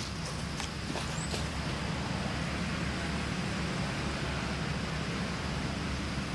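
Steady low engine rumble, like a motor vehicle running or road traffic, with a few faint ticks in the first second and a half.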